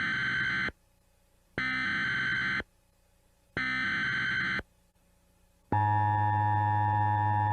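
Emergency Alert System SAME header: three identical one-second bursts of digital data tones, about a second apart, the first already under way. About six seconds in, a steady alert tone with many overtones starts and holds.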